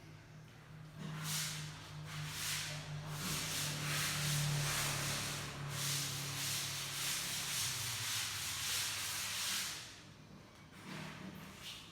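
A hissing, spray-like noise that swells and fades in waves over a steady low hum, starting about a second in and dying down near the end.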